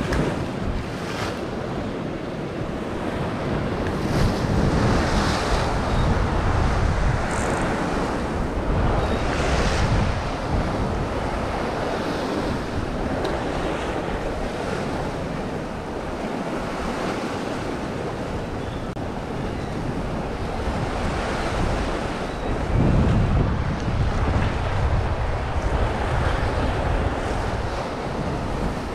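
Sea waves washing against rocks, with wind rumbling on the microphone in gusts that swell a few seconds in and again past twenty seconds in.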